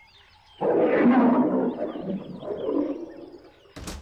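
A lion roaring once in a long, rough roar that begins about half a second in and fades away over about three seconds. A brief sharp burst of noise follows near the end.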